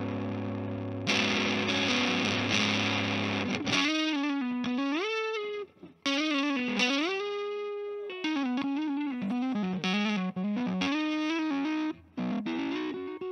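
Electric guitar played through a Tampco 'The Gazelle' 12AX7 tube preamp pedal on its overdriven crunch channel. A distorted chord rings for nearly four seconds, then a single-note lead line follows with several string bends.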